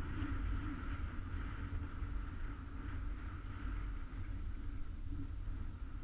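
Steady muffled wind buffeting on a GoPro inside its waterproof housing during a chairlift ride: a low rumble with a faint, wavering hum over it.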